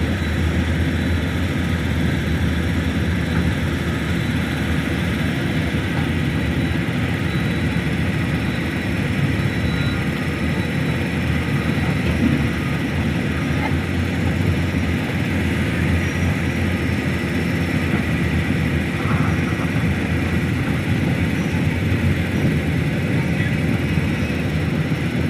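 SANY excavator's diesel engine running steadily under load.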